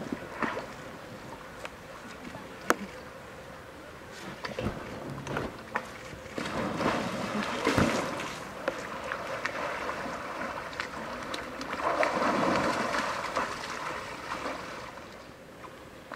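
Pool water splashing and sloshing as a polar bear swims and plays with floating toys. The splashing comes in two louder spells, about six seconds in and again about twelve seconds in, with a few sharp knocks.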